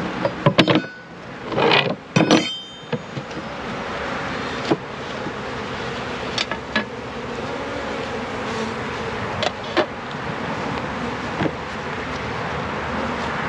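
Many honeybees buzzing in a steady hum from an opened package and hive. A few loud knocks and clunks sound in the first three seconds, with single clicks now and then after.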